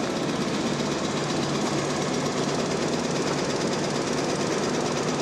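Excavator-mounted hydraulic breaker hammering continuously at a rapid, even rate, with the excavator's engine running under it.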